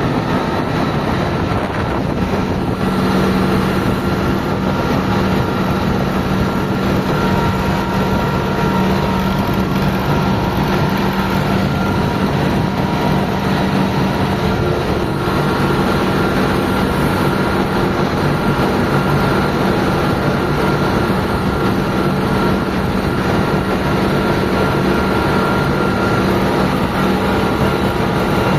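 Kubota MU 5502 tractor's diesel engine running steadily under load while hauling a loaded trolley, with a constant drone and a rattle of the moving rig.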